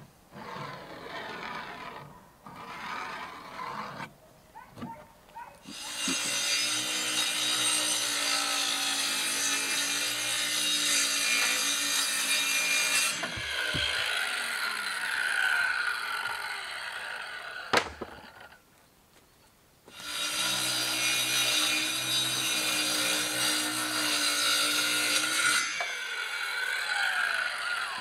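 Power saw cutting wood in two long runs of several seconds each, its motor running steadily under a hissing cut. There is a single sharp knock between the cuts, and short scrapes and knocks before the first one.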